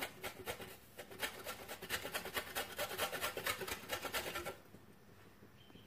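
Mozzarella cheese being grated on a metal hand grater: a quick run of repeated scraping strokes that stops about four and a half seconds in.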